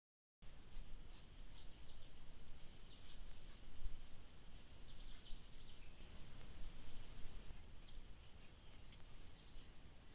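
Several birds chirping and whistling in dry tropical woodland, short high calls throughout and one long falling whistle near the middle, over a steady low rumble.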